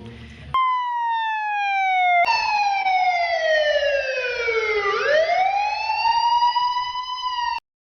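Police car siren wailing. Its pitch slides down twice, then rises and holds, and it cuts off abruptly near the end.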